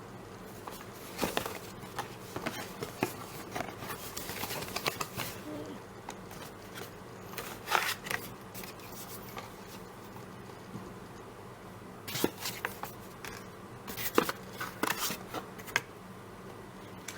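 Light stick packaging being handled and opened by hand: scattered rustles, scrapes and small clicks in clusters, about one to five seconds in, again near eight seconds, and between twelve and sixteen seconds in, over a faint steady hum.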